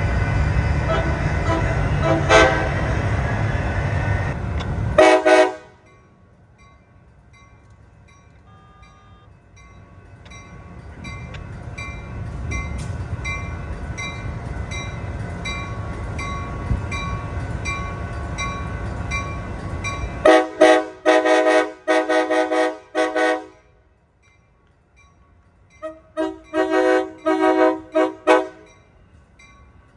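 Amtrak Pacific Surfiner locomotive air horn. A train rumbles past and ends with a short horn blast about five seconds in. After a lull, a train's rumble builds and it gives a horn show: a quick string of short toots, then a second string near the end.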